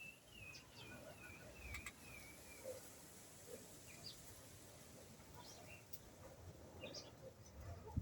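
Birds calling faintly. One bird repeats a short falling note about two or three times a second for the first two seconds or so, and scattered short chirps follow; two brief sharp clicks come through as well.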